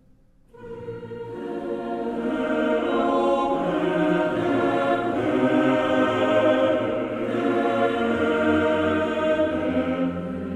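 Background music with choir voices singing sustained chords, coming in about half a second in after a brief near-silent gap.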